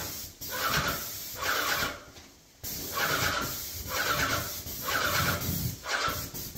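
Paint spray gun hissing in repeated bursts of about a second each, with short gaps between, as paint is sprayed pass after pass.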